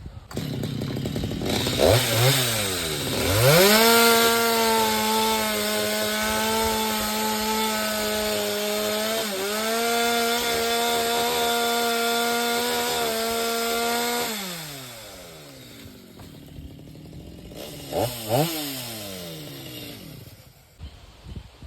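Two-stroke chainsaw revved up twice, then held at full throttle for about ten seconds with a brief dip partway through, before dropping back to idle. Near the end it is blipped twice more.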